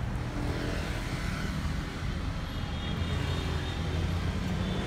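Car driving in city traffic, heard from inside the cabin: a steady low rumble of engine and road noise.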